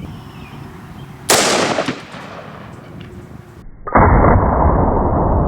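A single shot from a 454 Casull revolver, a sharp crack that rings out for about half a second. About two and a half seconds later comes a louder, muffled, drawn-out rumble with no treble that keeps going.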